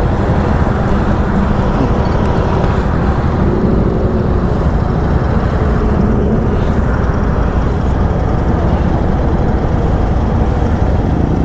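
Motorcycle on the move: a steady, loud rush of wind and road noise with a low rumble, the engine faintly audible underneath.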